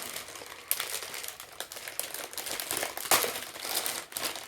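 Packaging crinkling and rustling as a package is torn open by hand, with sharp crackles, the loudest about three seconds in.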